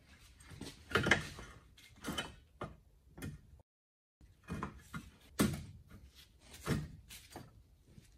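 Separate metallic knocks and scrapes of steel front-suspension parts being handled: the lower ball joint worked into the wishbone and the hub carrier with its brake caliper moved by hand. The loudest knock comes about a second in, and the sound cuts out briefly just before halfway.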